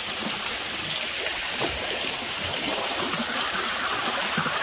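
Waterfall: a steady rush of falling and running water.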